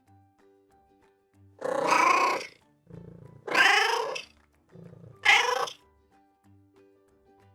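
Cat meowing three times, the first two calls long and the last one short, over soft background music.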